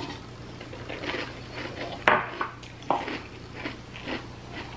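Metal spoons clinking and scraping against small glass bowls of cereal and milk: a scatter of light irregular taps, the sharpest a little after two seconds in and again near three seconds, over a faint steady low hum.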